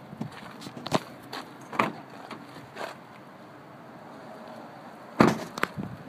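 A few scattered light knocks, then a car door, that of a Kia Forte Koup, shut with a heavy thud about five seconds in, followed by a lighter knock.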